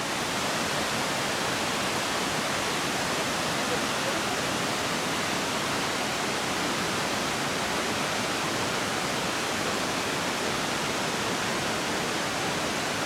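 Yudaki waterfall, water pouring down a steep rock face: a steady, even rush of falling water.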